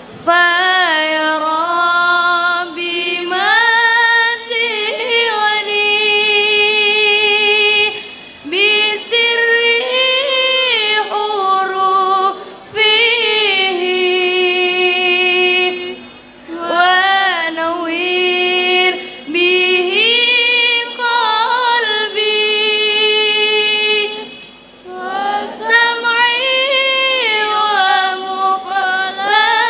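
Unaccompanied young female voices chanting an Arabic prayer in long, slow, ornamented phrases, with short breaths between the phrases.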